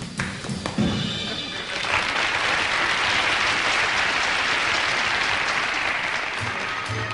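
A few last tap-dance steps and band accents, then a studio audience applauding steadily from about two seconds in. The band starts playing again near the end.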